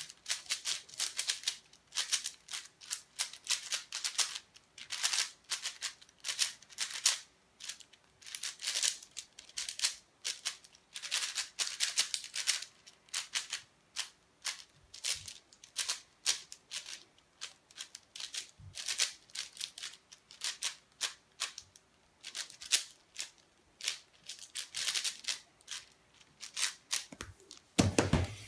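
Plastic 6x6 speed cube being turned quickly by hand: rapid clicking and clacking of the layers in bursts, with short pauses between them.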